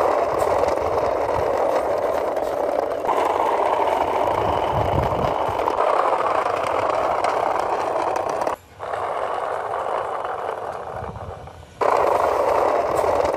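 Remote-control model car with a carved wooden body and wooden wheels rolling over rough asphalt: a steady rattling, scraping rush from the wheels and drive. Past the middle it cuts out for a moment, runs quieter for a few seconds, then comes back at full level.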